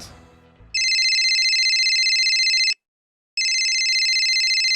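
Cell phone ringing with a rapid trilling ring: two rings about two seconds each, with a short pause between them.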